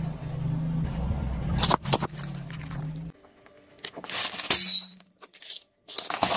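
Car tyre crushing a plate heaped with coins: the plate cracks and breaks and the coins clink about four seconds in, with more crunching near the end. A low steady hum comes before it.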